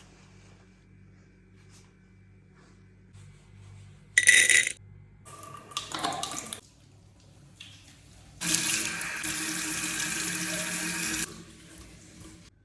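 Tap water running into a sink in a steady stream for about three seconds, starting about eight and a half seconds in and shutting off abruptly. A short, loud burst of sound comes about four seconds in.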